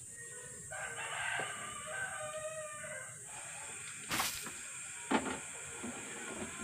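A rooster crowing once, one long call of about two and a half seconds, followed by two short sharp noises about a second apart.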